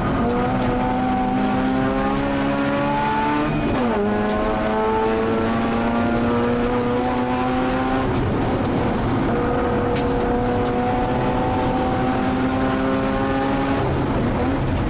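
Mazda RX-8 Cup race car's two-rotor Renesis rotary engine under hard acceleration, heard from inside the cockpit. The revs climb steadily, drop sharply about four seconds in, climb again, fall away around eight seconds, and drop once more near the end.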